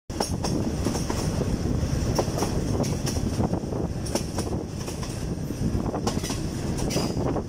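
Steel wheels of a State Railway of Thailand passenger train clacking over the joints of jointed rail, in groups of clicks about every second, over the steady rumble of the moving carriages.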